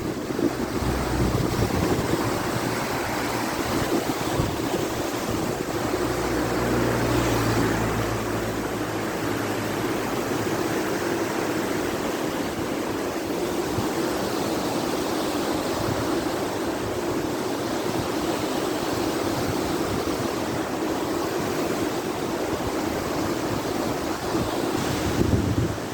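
Steady rush of falling and flowing water, with an extra low rumble during the first eight seconds or so.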